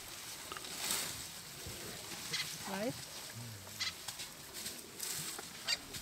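Elephant browsing, pulling at a bush with its trunk: leaves rustle and twigs snap in several sharp cracks, the loudest near the end. A few short pitched calls are heard about halfway through.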